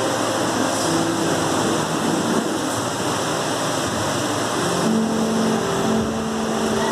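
Muffled, noisy music over a hall PA system: a steady wash of hiss with a few held low notes coming through in the second half.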